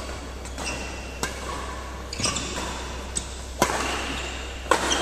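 Badminton rally: racket strings striking the shuttlecock, four sharp hits about a second apart, the loudest one past the middle, each echoing briefly in a large hall.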